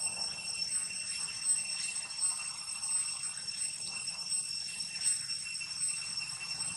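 Steady high-pitched insect drone, one tone with overtones that pulses faintly. A few soft rustles or taps come through it.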